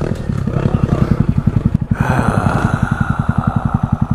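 Single-cylinder four-stroke dirt bike engine idling close by, a steady even putter. About two seconds in, a second, higher engine note comes in from another dirt bike running farther off.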